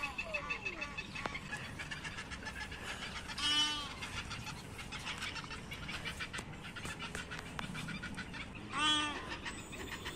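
Two loud, short bird calls about five seconds apart, each under half a second, over a steady background of small bird chirping.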